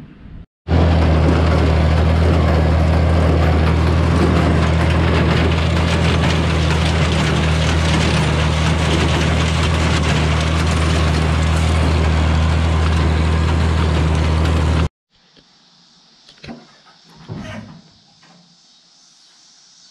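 Old farm tractor engine running steadily with the hay baler working behind it, loud and close-up. It cuts off abruptly near the end, leaving quiet with a few faint rustles.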